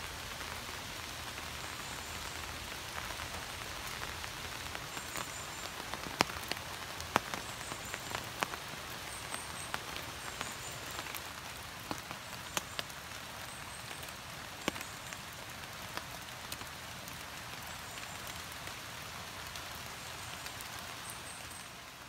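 Steady rain falling on forest foliage, with scattered louder drips landing close by. Faint, short high chirps come through now and then.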